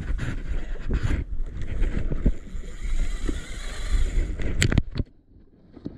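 Wind buffeting the microphone and rumbling handling noise as the camera and gear are moved about, broken by a few sharp knocks. A quick pair of clicks comes just before the sound drops away suddenly about five seconds in.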